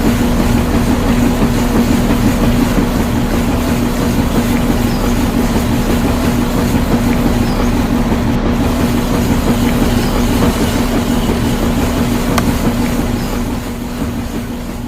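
Steady mechanical running noise with a constant low hum, fading away near the end.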